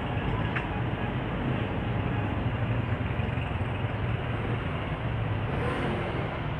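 Steady rumble of street traffic.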